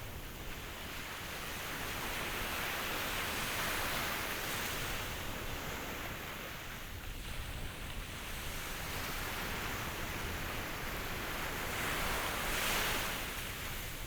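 Ocean waves washing ashore, a steady hiss of surf that swells twice, with the second wash, a little before the end, the loudest.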